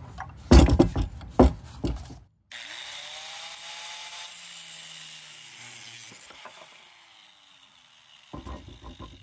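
Metal exhaust parts clanking against a wooden step, then an angle grinder with a cutting disc winding down, its whine sinking in pitch and fading over several seconds. A few more knocks near the end.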